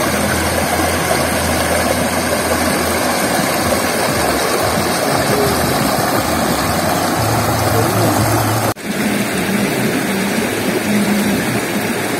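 Steady rush of a shallow, rocky stream, with a low hum that comes and goes underneath. The sound cuts out for a moment about nine seconds in.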